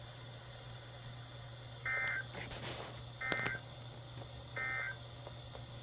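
NOAA Weather Radio EAS/SAME End-of-Message data bursts on an RCA RCDW10 weather radio: three short, screechy digital tone bursts, each under half a second, about a second and a half apart, marking the end of the weekly test broadcast. A low steady hum runs underneath.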